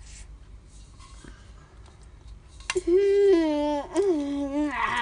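A girl's drawn-out whining wail, starting a little under three seconds in: two long held notes, each sliding slightly down in pitch. It is a pained moan at the burn of spicy instant noodles.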